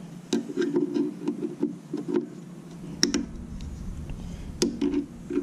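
Hand tools working a small cotter key and pin loose on a motorcycle foot peg mount: a series of irregular sharp clicks and taps with some rubbing in between.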